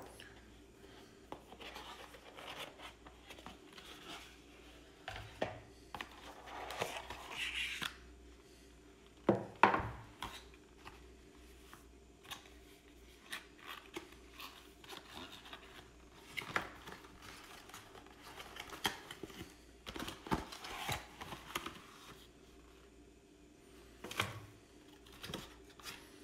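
Cardboard box and packaging insert being handled during unpacking: irregular rustling, scraping and sliding of card, with a sharp knock about nine seconds in.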